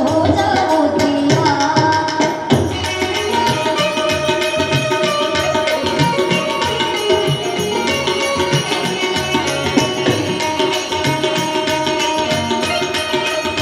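Live Gujarati folk music: a harmonium holding steady chords over hand drums and small jingling percussion. A woman's singing voice is heard for the first couple of seconds, then the accompaniment carries on as an instrumental passage.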